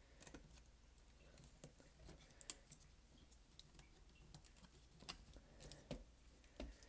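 Faint, scattered small clicks and taps as a TI-83 Plus calculator's metal shield plate and plastic housing are handled and pressed into place, a few clicks a little sharper than the rest.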